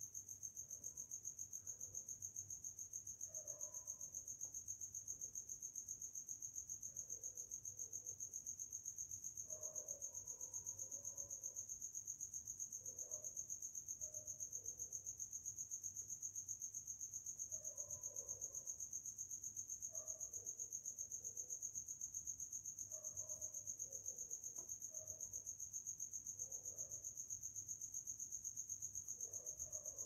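Faint, steady insect chirping: a continuous high-pitched trill that pulses rapidly. Faint, irregular short sounds come and go lower down.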